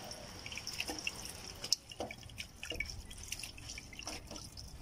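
A thin stream of water from a foot-pedal handwashing station's pipe spout running over hands as they rinse off soap, dripping and splashing into the basin in small irregular patters.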